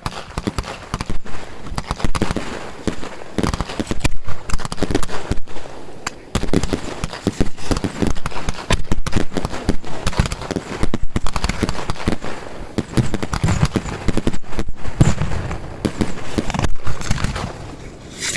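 Fireworks crackling and popping: a dense, unbroken run of rapid sharp pops whose loudness swells and fades throughout.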